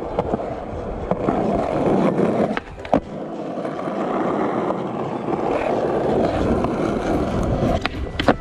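Skateboard wheels rolling steadily over asphalt, with a sharp click about three seconds in and two more clicks near the end.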